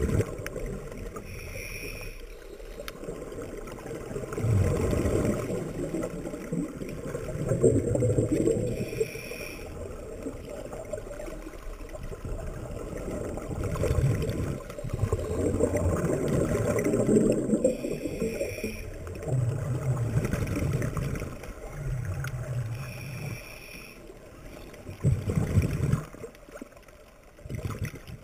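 Scuba regulator breathing heard underwater: bursts of rumbling, gurgling exhaled bubbles every few seconds, alternating with short, high whistling breaths drawn through the regulator.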